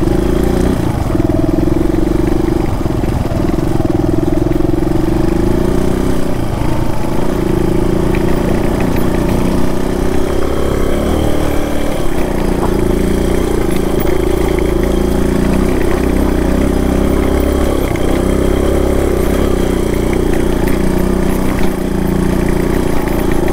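Single-cylinder four-stroke dual-sport motorcycle engine running steadily as the bike rides along a trail, with the engine note shifting briefly a couple of times as the throttle changes.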